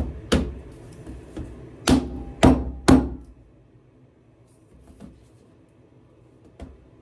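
Dust cap being hammered onto a bicycle pedal: several sharp knocks in the first three seconds, then a quieter stretch with a couple of faint taps.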